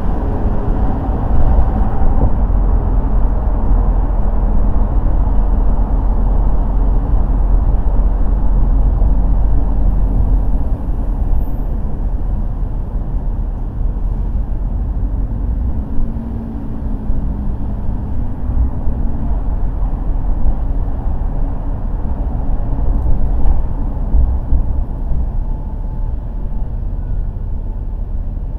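Car being driven, a steady low rumble of engine and road noise.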